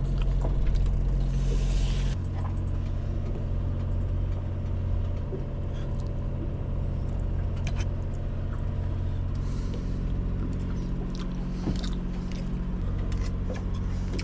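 A boat's engine running with a steady low drone, heard inside the cabin. A brief hiss about a second in and a few light clinks of cooking gear.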